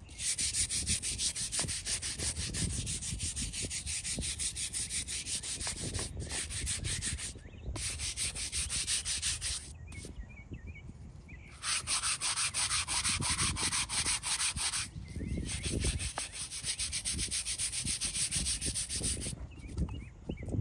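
Hand scrub brush scrubbing the surface of a small weathered headstone in rapid back-and-forth strokes, a dry rasping hiss in runs broken by several short pauses.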